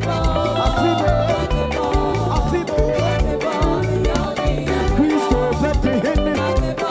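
Live band playing upbeat African gospel praise music, with a steady bass beat under a bending melody line.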